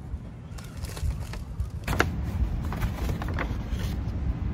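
Paper takeout bag rustling and crinkling in a series of sharp crackles as items are taken out of it, loudest about two seconds in. A steady low rumble runs underneath.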